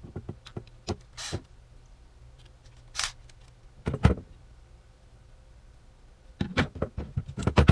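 Scattered clicks and knocks of a 3D-printed plastic assembly and hand tools being handled on a wooden tabletop. A heavier knock comes about four seconds in, and a quick run of clicks near the end.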